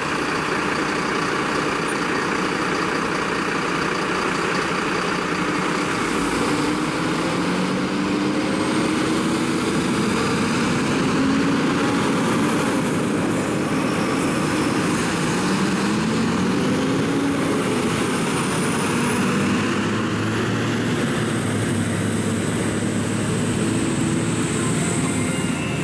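Fire engines' diesel engines running as the trucks pull out and drive off, the engine pitch rising and falling a few times, over steady road noise.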